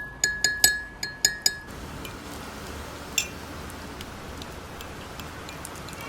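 Kitchenware clinking: about six sharp, ringing glass-like clinks in quick succession in the first second and a half. After that there is a steady hiss with a few scattered small ticks.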